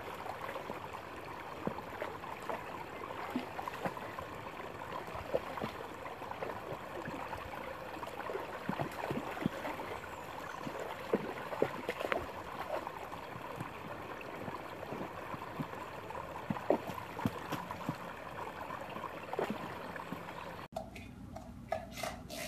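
Shallow creek water running, with many short splashes as a dog paws and digs at the water. It cuts off suddenly near the end.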